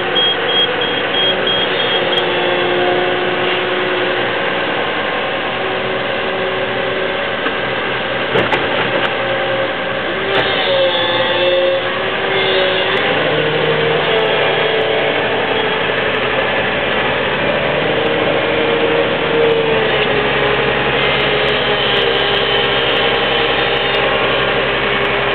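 Komatsu PC180NLC crawler excavator's diesel engine running under hydraulic load, its pitch rising and falling as the clamshell grab is worked. A high repeated beep sounds for the first couple of seconds, and a single knock comes about eight seconds in.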